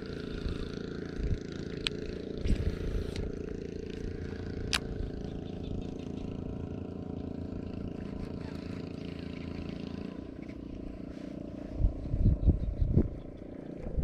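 A small engine running steadily, with a few sharp clicks and some low bumps near the end.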